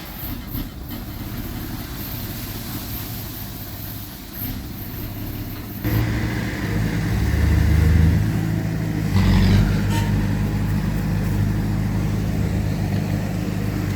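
Heavy diesel engine of earthmoving machinery running. About six seconds in it abruptly gets much louder and works harder, with a deep rumble that peaks a couple of seconds later and stays strong.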